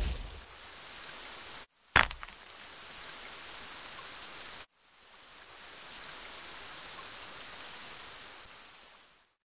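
Steady hiss of heavy rain that cuts out briefly twice and stops shortly before the end. A sharp, loud crack about two seconds in.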